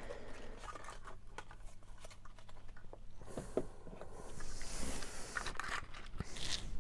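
Paper wrappers being torn and crinkled off small dinosaur-egg toys, with scattered light clicks and handling. The rustling grows louder about three seconds in.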